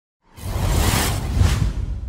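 A whoosh sound effect: a rushing swell that comes in about a third of a second in, with a deep rumble under it. Its hiss fades near the end while the rumble lingers.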